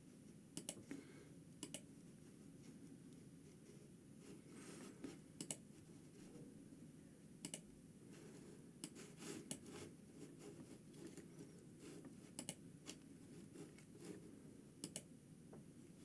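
Sparse, irregular key clicks from a computer keyboard, single sharp taps a second or more apart, over a faint low hum.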